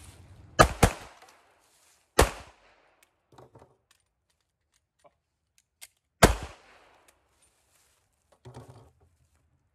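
Glock 42 .380 ACP pocket pistol fired four times: two quick shots about half a second in, a third about a second and a half later, then a long gap and a last shot about six seconds in. Faint clicks and rattles in the gap come with the magazine drop and reload.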